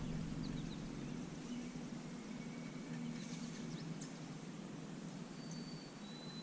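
Faint bird calls, a few thin high whistles and short chirps, over a low steady background hum.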